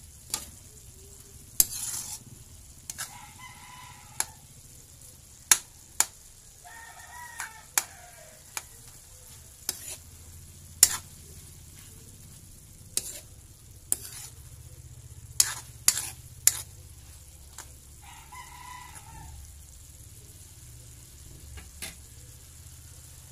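Metal spatula scraping and clinking against a wok as fried tofu and pork are stirred, in irregular sharp clicks, over a faint steady sizzle from the pan.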